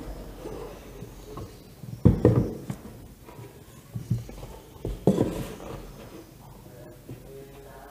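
Cardboard packaging handled on a wooden table: an inner box slid out of its cardboard sleeve, with a few knocks and scrapes. The loudest knock comes about two seconds in, with others around four and five seconds.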